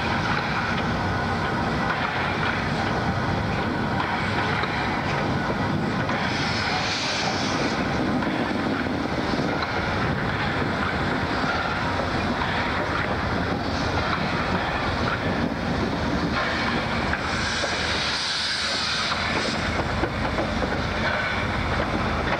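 Steam tank locomotives running past, a steady rumble of wheels and working engines. A hiss swells briefly about seven seconds in and again about eighteen seconds in.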